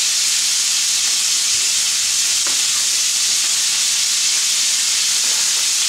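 Peppered bacon frying in butter in a frying pan, sizzling with a steady hiss.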